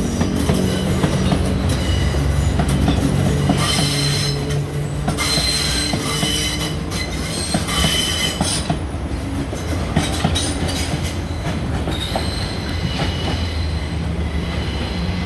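Athens Metro Line 1 electric train running past close by on curved track, its wheels squealing against the rails in high-pitched bursts, strongest in the first half, over a steady rumble with clicks from the wheels crossing rail joints.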